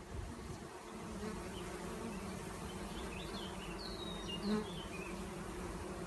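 Honeybee swarm buzzing steadily in and on a swarm-catching box, swelling briefly louder about four and a half seconds in.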